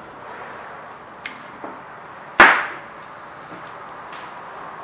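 A sharp click about a second in, then a louder knock about two and a half seconds in: hard parts being handled and set down, as when a car push-to-start button is swapped or pressed.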